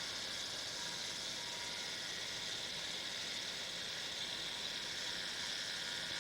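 Steady hiss from an outdoor disaster-prevention radio loudspeaker: open analog radio-channel noise carried after the chime music has finished.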